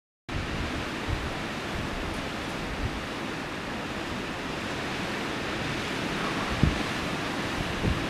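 Steady wind blowing through long grass, with gusts buffeting the microphone in a few short low thumps.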